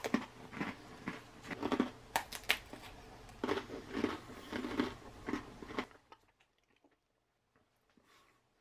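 Dry square crackers crunching and clicking as they are gathered up off a stainless steel compartment tray, in irregular crunches for about six seconds, then near silence.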